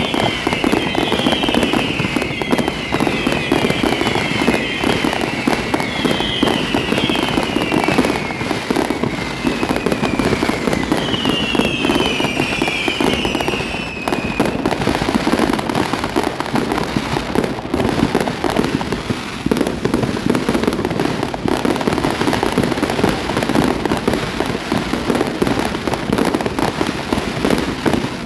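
Fireworks display: a dense, continuous crackling of bursting shells, with repeated high whistles falling in pitch through about the first half.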